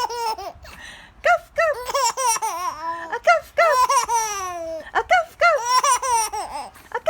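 Baby laughing in repeated short, high-pitched bursts, with one longer squeal that falls in pitch about halfway through.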